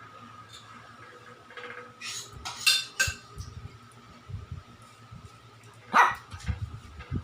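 Shih tzu barking: a few short, sharp barks about two to three seconds in, then a pause and one more loud bark near the end.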